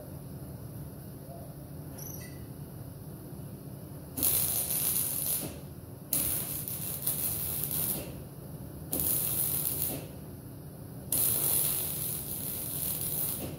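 Welder laying four short bursts of weld on a steel patch panel, each burst one to two seconds long and starting and stopping sharply, over a steady low hum.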